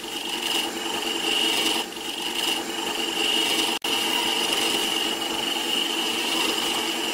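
Small wood lathe running steadily with a hand chisel cutting a spinning wooden chopstick: a constant high whine over the motor hum and the scrape of the cut. The sound breaks off for an instant about four seconds in.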